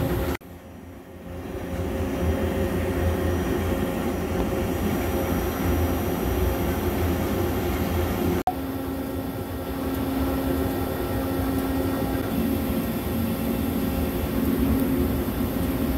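Steady drone of running machine-shop machinery, a low hum with a few steady tones over it. It dips about half a second in, builds back over a second, and breaks off for an instant about eight and a half seconds in.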